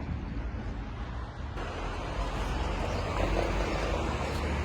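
Road traffic noise, a steady rumble of passing cars, growing fuller and a little louder about a second and a half in.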